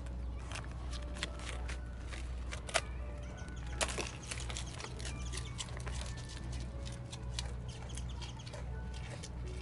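Sika deer biting and chewing a crisp rice cracker: irregular crunches and crackles, with two louder snaps a few seconds in.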